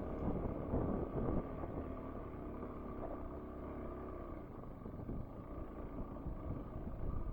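Dirt bike engine running over a rough dirt road, its pitch rising and falling with the throttle, over a steady low rumble.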